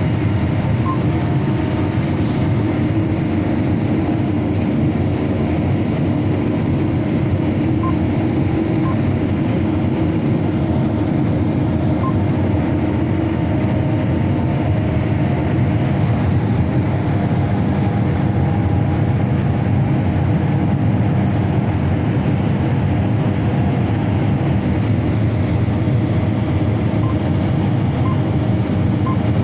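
Combine harvester running steadily while harvesting corn: a continuous loud, low mechanical noise that holds even throughout.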